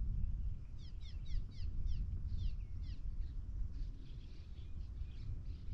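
A songbird singing a quick run of downward-sliding whistled notes, about four a second for two seconds, followed by fainter scattered notes, over a steady low rumble.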